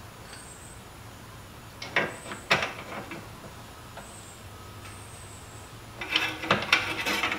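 Metal clicks and taps of hand tools fitting a bolt to a car's starter motor from underneath: a few single knocks, then near the end a quick run of clicks.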